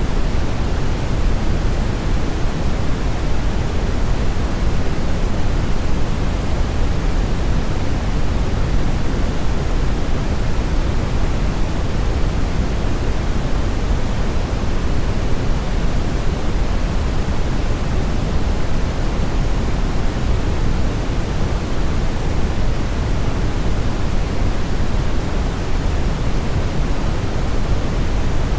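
Steady, unchanging rushing noise, heavier in the low end, like pink noise, with no other sound standing out from it.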